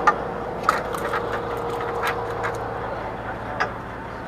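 Steady low drone of a fishing boat's engine, with a faint held tone in the first couple of seconds. About seven sharp clicks and knocks sound over it at uneven intervals.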